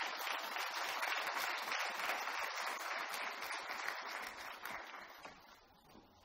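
Audience applauding with a dense patter of many hands clapping, which fades out about five seconds in.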